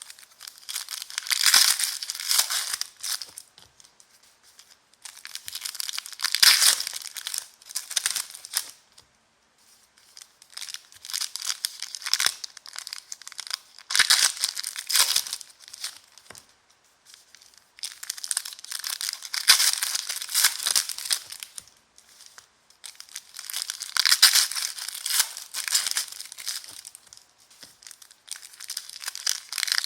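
Trading-card pack wrappers crinkling and tearing as packs are ripped open and handled. The sound comes in a string of bursts a few seconds long, separated by short pauses.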